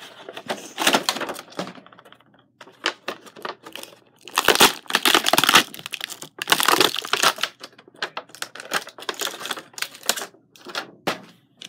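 Toy packaging being torn open and handled: paper and a clear plastic bag crinkling and tearing in quick, irregular rustling bursts, loudest about four to seven seconds in.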